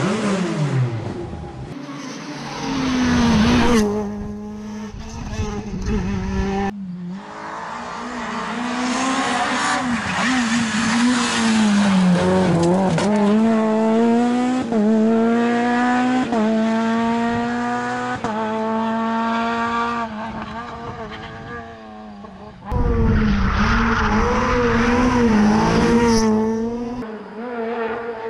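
Renault Clio R3 rally car's engine revving hard and climbing through a series of upshifts, the pitch rising and dropping back with each gear change, over several separate passes.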